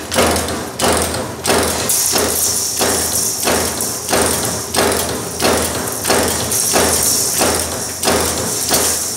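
Concertina razor-wire making machine's punch press stamping in a steady rhythm, about one and a half strokes a second, each stroke a sharp metallic thump over the steady hum of its drive motor.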